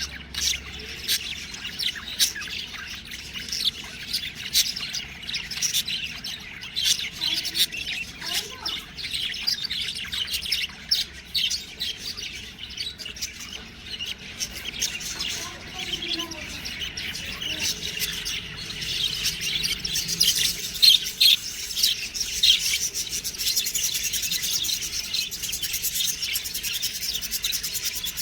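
A flock of budgerigars chirping, many short high chirps overlapping, growing busier and louder about two-thirds of the way through.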